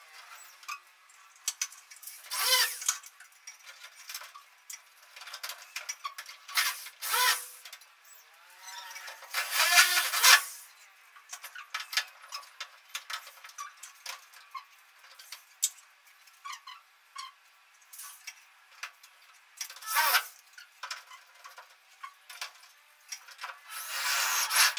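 Corded electric drill run in short bursts, about five times, each a second or less, with small clicks and knocks of handling in between.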